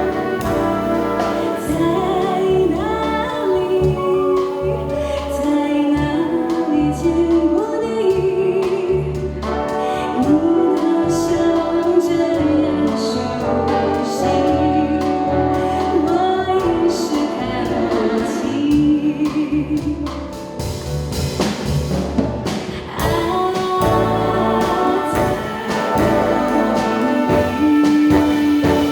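Live band music with a singer: a sung melody over bass and a steady drum beat, with brass in the arrangement.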